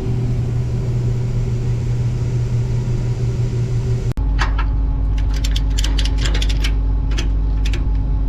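Combine harvester running with a steady low hum. About four seconds in, the sound changes abruptly to a deeper steady hum, with irregular sharp clicks and ticks over it.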